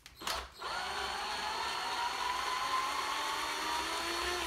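Cordless electric screwdriver backing out a screw: a click, then its motor whines steadily for almost four seconds, the pitch creeping slowly upward, and it winds down at the end.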